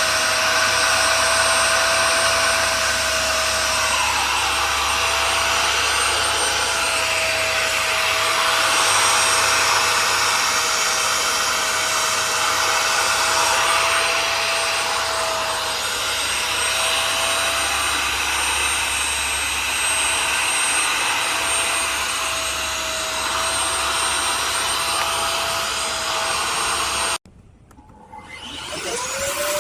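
Portable spot cleaner's vacuum motor running with a steady whine and rushing air. It cuts off suddenly near the end, then spins back up with a rising whine.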